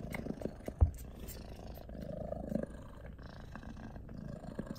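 Domestic cat purring close to the microphone, a steady low rumble, while nursing her kittens. A single soft thump about a second in.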